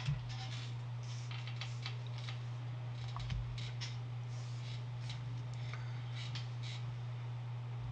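Rustling and crinkling from trading cards and packaging being handled, in short irregular bursts, with one low thump about three seconds in. A steady low electrical hum runs underneath.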